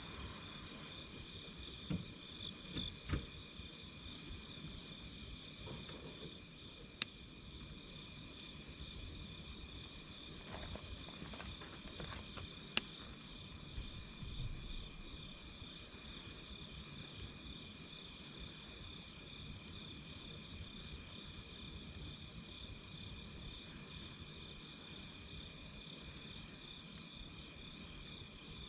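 A steady, pulsing chorus of chirping insects, with occasional sharp pops and soft thumps from a crackling campfire: a sharp crack about 7 s in and another about 13 s in.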